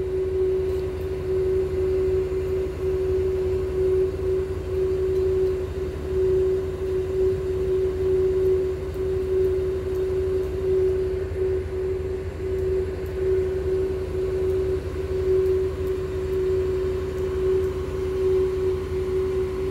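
Mercedes-Benz OH 1626 bus idling, with a steady single-pitched note of air escaping from its compressed-air system over the low engine rumble. This is the bus's characteristic air sound.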